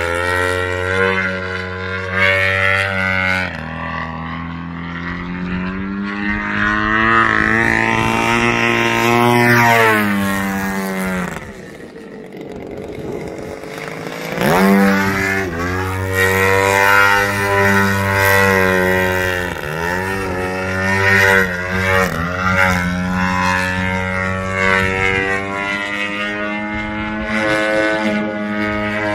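GP178 gas engine and 31x12 carbon-fibre propeller of a 116-inch Extra NG RC aerobatic plane in flight. The engine note rises and falls with throttle and with the plane's passes. About eleven seconds in it is throttled back to a lower, quieter drone, then opened up again near fifteen seconds.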